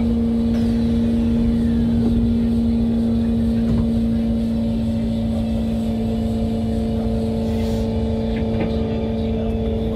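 Interior running noise of an SMRT Kawasaki C151 MRT train: a steady rumble with a constant hum, and a faint falling whine early on.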